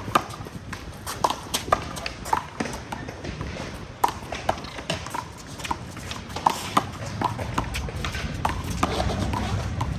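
One-wall handball rally: a small rubber ball slapped by players' hands and smacking off the wall and ground, an irregular run of sharp slaps a fraction of a second to about a second apart.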